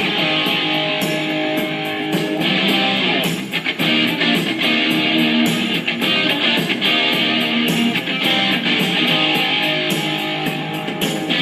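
Instrumental backing music led by guitar, with no singing.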